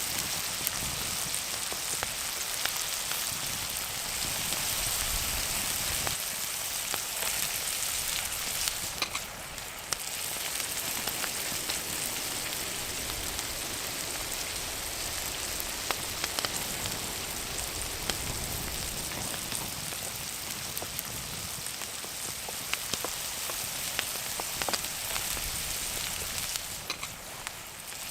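Bacon frying in butter in a skillet over a campfire: a steady sizzle with scattered small crackles.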